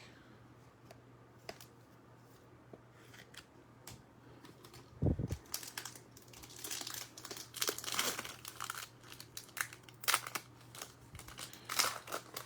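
Trading-card pack wrapper being torn open and crinkled, in repeated rustling bursts over the second half. A soft thump comes about five seconds in.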